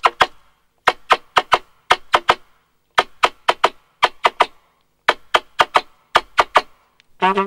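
Short, sharp smacking pops played through a trumpet with the kiss technique, in quick rhythmic groups of three or four, then a short trumpet note near the end.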